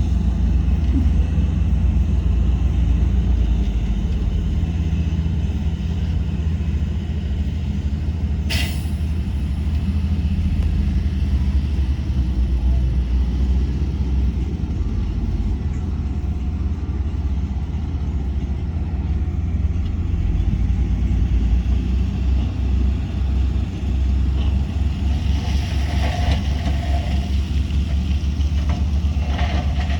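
Heavy diesel earthmoving machinery, a bulldozer and dump trucks, running with a steady low rumble. About eight seconds in there is a brief hiss of air, and from about 25 seconds in the rumble turns into a rattling, clanking pulse.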